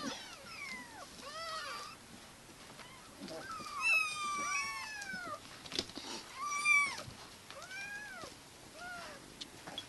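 Several young kittens mewing over and over, thin high calls that rise and fall in pitch, sometimes two at once: hungry kittens begging to be fed.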